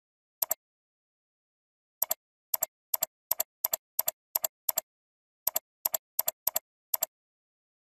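Computer mouse button clicking over and over, each click a quick press-and-release pair. About fifteen clicks, mostly about three a second, with a pause of about a second and a half near the start and another near the middle.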